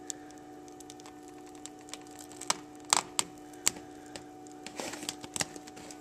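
Plastic vapor barrier of a BMW E46 door being peeled away from its sticky black butyl tape, crackling and crinkling, with a few sharp snaps about halfway through and again near the end.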